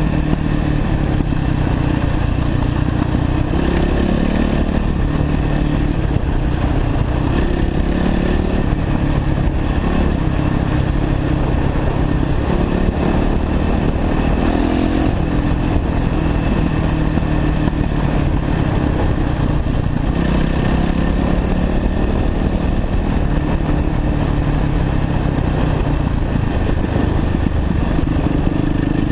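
A 2009 Yamaha YZ450F's single-cylinder four-stroke engine running as the dirt bike is ridden, its engine note shifting up and down with the throttle.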